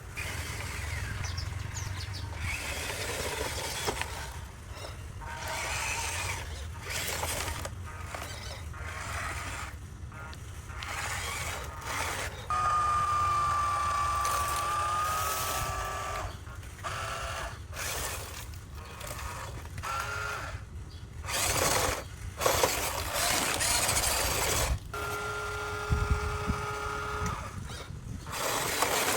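Small electric motors of a remote-control toy excavator whirring in short runs, with a steady whine from the motors at times and a few knocks and scrapes.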